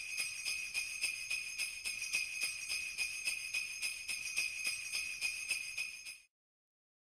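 Jingle bells shaken in a steady rhythm, several shakes a second, stopping about six seconds in.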